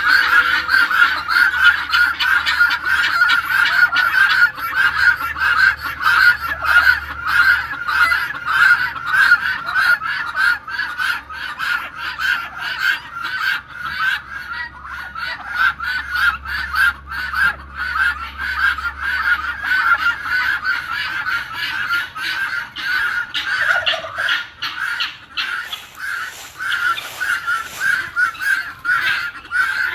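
A flock of helmeted guineafowl calling without a break: a rapid run of short repeated calls, several a second, overlapping one another.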